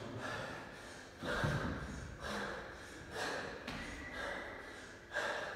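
A man breathing hard and noisily from exertion, a forceful breath about once a second, the loudest about a second and a half in.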